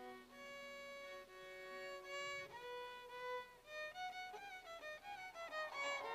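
A violin playing a melody, slow held notes at first, then shorter, quicker notes in the second half, faint.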